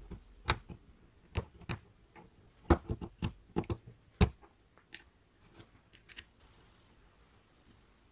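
The metal keyless chuck of a Bosch GSB 18V-EC drill clicking and knocking as it is handled and turned by hand: a string of sharp, irregular clicks, loudest in the first half, growing fainter and sparser after about five seconds.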